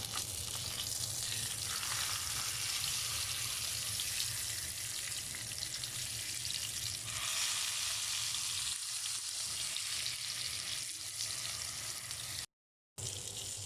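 Salmon frying in olive oil in a pan: a steady sizzling hiss. It cuts out briefly near the end.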